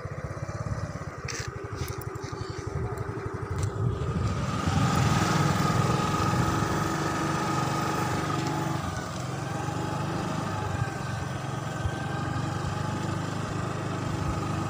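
Motorcycle engine running while riding, with a steady low pulsing. About four seconds in it gets louder as the bike picks up speed, and wind and road noise rise, with a faint whine on top.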